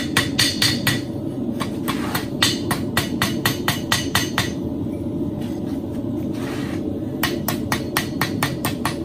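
Blacksmith's hammer, its round face striking a small piece of metal on the anvil in a quick run of ringing blows, about three to four a second. The blows stop for about three seconds midway and start again near the end, over a steady low rumble.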